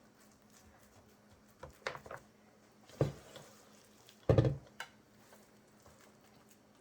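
Utensil knocking and scraping against a pan while the cornbread dressing is worked in it: a few short clatters, the loudest about four seconds in.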